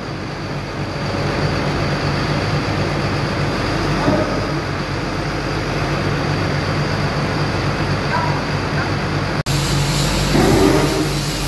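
Caterpillar 320D excavator's six-cylinder diesel engine running steadily with a low hum. The sound breaks off for an instant about nine and a half seconds in, then the engine carries on.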